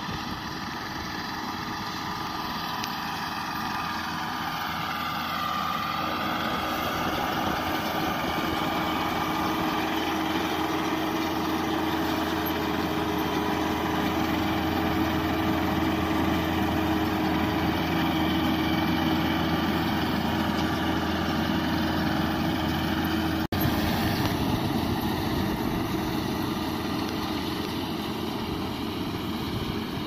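Rural King RK55 tractor engine running steadily while pulling a Case 3450 round baler through windrows, the tractor and baler drive humming together. The pitch dips briefly and recovers about five seconds in, and the sound grows louder as the rig comes closer, with a short dropout about two-thirds of the way through.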